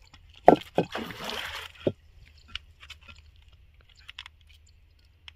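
A fish thrashing at the water's surface: a couple of sharp slaps, a short splash and one more slap, all between about half a second and two seconds in.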